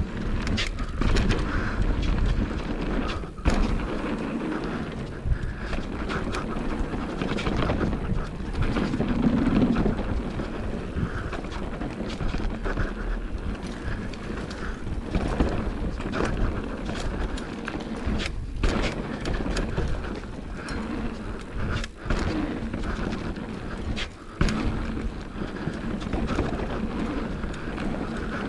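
Mountain bike riding a dirt trail: a steady rushing of tyres and air with frequent knocks and rattles from the bike over bumps and landings.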